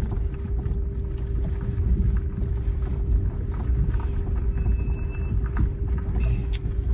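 Car cabin noise on the move: a steady low road rumble with a constant hum and light knocks. A little past the middle comes a brief thin high squeal from the brake pads, with another short one near the end; the driver puts the squeal down to poor-quality pads that have squealed since new, though they are fairly recent.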